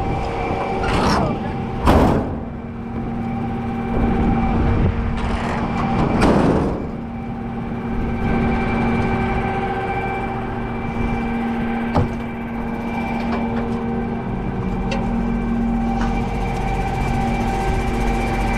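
Farm vehicle engine running steadily, with a few short loud noises about one, two and six seconds in and a sharp click near the twelve-second mark.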